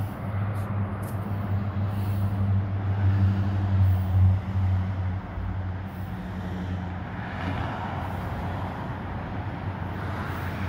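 An engine or motor running with a steady low hum, louder about four seconds in, then settling lower for the rest.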